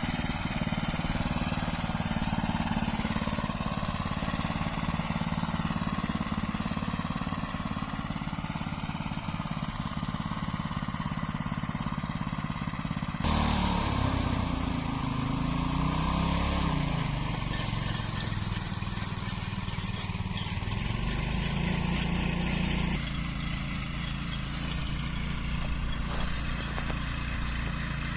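Small engine of a walk-behind cultivator (mini tiller) running steadily as it works the soil. Its pitch rises and falls briefly about halfway through, and the sound changes abruptly twice.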